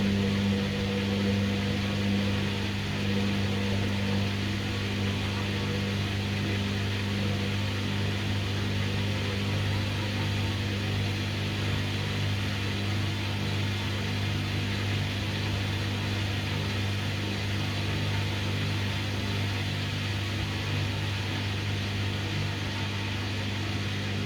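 Hoover washing machine on its spin cycle, the motor giving a steady hum that holds one pitch as the drum struggles to spin up.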